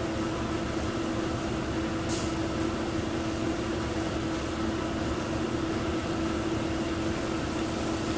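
Jet dyeing machinery running: a steady mechanical hum with one strong held tone, and a brief hiss about two seconds in.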